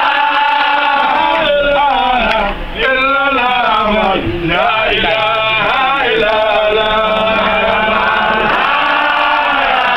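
Male voices chanting a Sufi devotional chant, loud and continuous, with two short breaks about two and a half and four seconds in.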